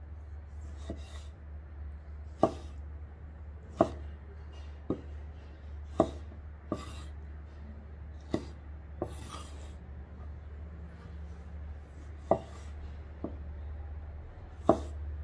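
A knife chopping food on a cutting board: single sharp cuts at an irregular pace, roughly one to two seconds apart, some much harder than others, over a steady low hum.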